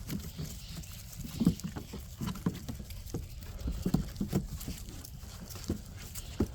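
Six-week-old Doberman puppies scuffling in play, their paws pattering with irregular small knocks and scrapes.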